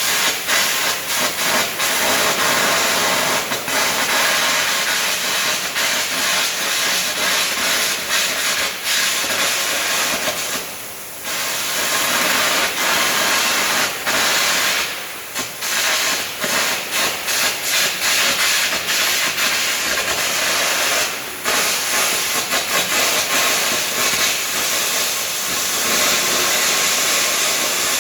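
Air carbon arc gouging: a loud, crackling hiss from the arc and the compressed-air jet blowing away molten metal. It breaks off briefly three times, as the arc is stopped and struck again.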